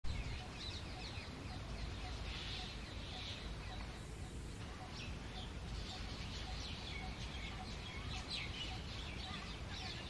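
Common mynas fighting, with jungle babblers among them: a dense, continuous run of loud, harsh, overlapping screaming calls, over a steady low rumble.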